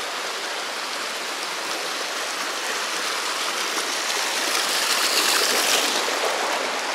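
Mill Creek's water rushing in a steady hiss, which swells a little louder about five seconds in.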